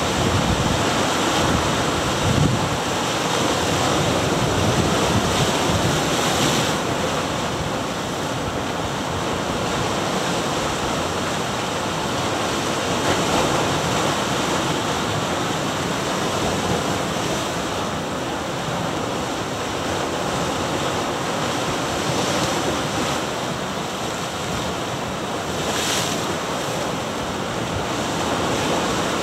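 Ocean surf washing and breaking against granite rocks along the shore: a continuous rush of churning water that swells and ebbs a little, with wind buffeting the microphone.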